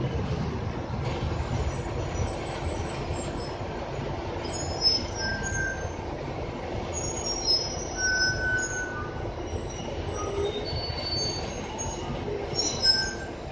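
Ride noise inside a moving RTS city bus: a steady low rumble, with short high-pitched squeals and creaks coming and going from a few seconds in.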